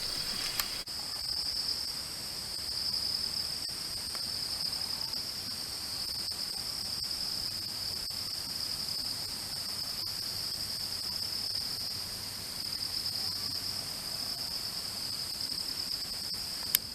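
A steady, high-pitched chorus of insects, gently pulsing, over a faint hiss of flowing stream water. There is a sharp click about half a second in and another just before the end.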